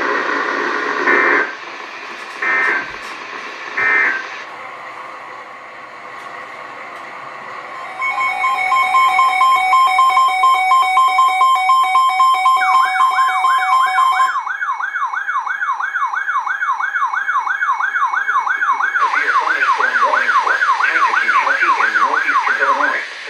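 NOAA Weather Radio alert signalling: three short digital data bursts right after the voice ends, the end-of-message code closing the warning. Then static, then a steady electronic alert tone from about a third of the way in, overtaken by a wavering siren-like alarm that sweeps up and down about two and a half times a second and stops just before the end.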